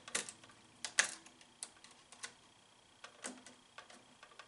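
Straight-tip screwdriver working the green ground screw on a single-pole switch as it is tightened down: a scatter of sharp metal ticks and scrapes, the loudest about a second in.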